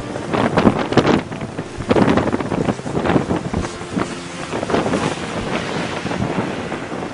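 Storm wind buffeting a handheld camcorder's built-in microphone in loud, irregular gusts.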